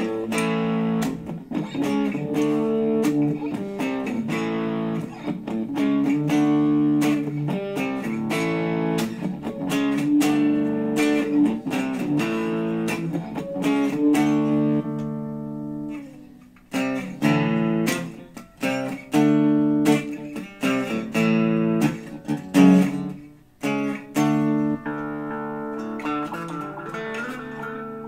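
Gibson Les Paul electric guitar played through a Digitech RP55 effects processor: repeated strummed chords. Past the middle the chords turn short and choppy with gaps between them, and near the end a chord is left ringing.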